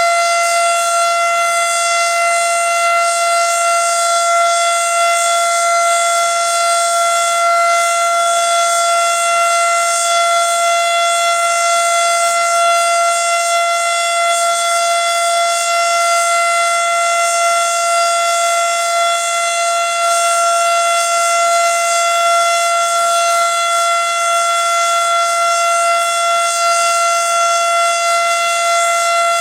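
Federal Signal Model 7 outdoor warning siren sounding its steady alert signal: one loud tone held at a constant pitch, with no rise or fall.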